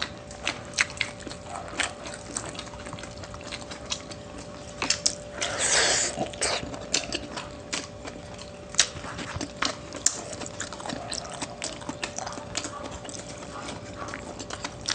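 Close-miked eating: chewing and mouth sounds with many small sharp clicks, and a louder hissing burst, like a slurp, about five and a half seconds in. A faint steady hum lies underneath.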